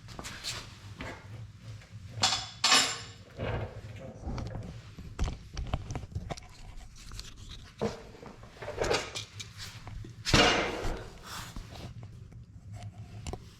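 Irregular metal clicks, knocks and scraping from brass pipe fittings being handled and screwed together, with the loudest scraping bursts about two seconds in and about ten seconds in, over a steady low hum.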